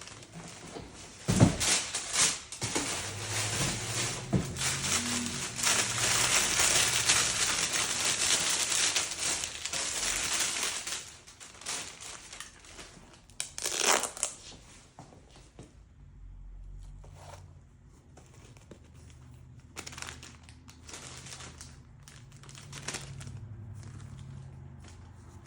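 Packing paper crinkling and rustling as a sneaker box is unpacked, loud and continuous for about ten seconds, then a sharp knock, then lighter scattered rustles and knocks.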